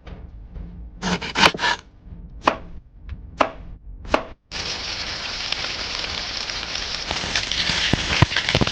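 Knife chopping on a cutting board: a few sharp strokes, some in quick succession. About halfway through, a steady hiss starts and carries on.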